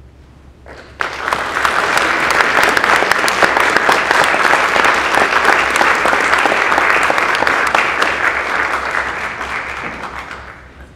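Audience applauding, starting suddenly about a second in and tapering off near the end.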